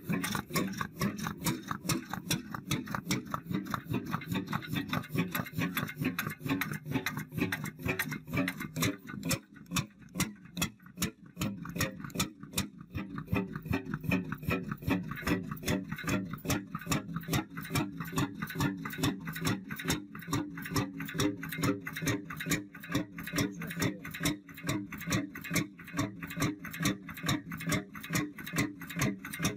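Vintage stationary engine with a large flywheel running, an even, fast beat of knocks and clicks from its firing and exposed valve gear.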